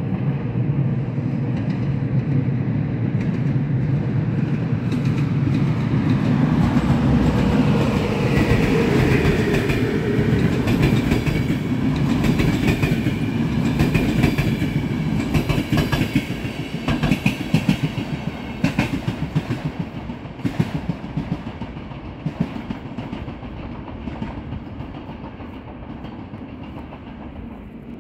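A Romanian EA-class six-axle electric locomotive (EA 840) hauling its train past: a low hum at first, then a fast run of wheel clicks over the rail joints through the middle, fading as the train moves away.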